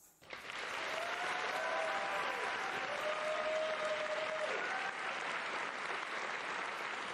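Theatre audience applauding steadily, with a few voices cheering over the clapping.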